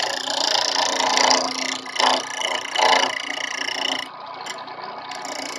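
Small homemade lathe driven by a washing-machine motor running steadily with a low hum, with louder noisy swells about two and three seconds in.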